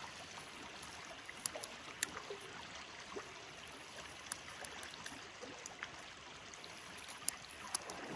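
Faint steady rush of a river flowing, with a few scattered light ticks.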